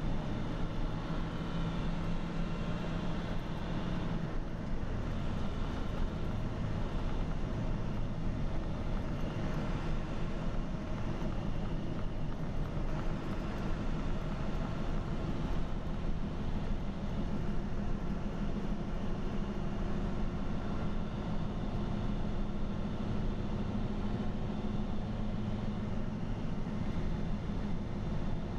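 Engine and tyre noise heard inside a truck's cab at highway speed: a steady drone with a low engine hum that sits a little higher in pitch during the second half.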